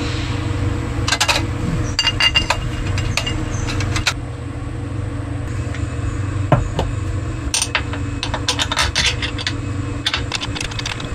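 Metal tools and engine parts clinking, clanking and scraping as a jet-ski engine is reassembled by hand, over a steady low hum.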